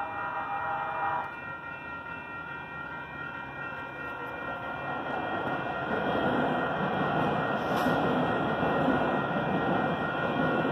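Level-crossing warning bells ring steadily while a light rail train passes over the crossing, its running noise building from about five seconds in and staying loud to the end. A short horn blast sounds in the first second.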